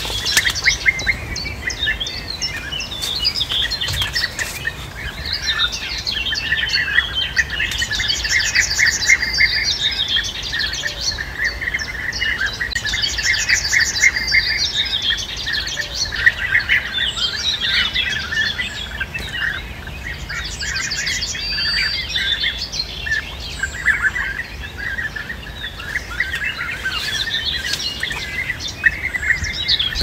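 European bee-eaters calling: many rolling, trilled calls overlap continuously. Higher, faster trills come in every five seconds or so.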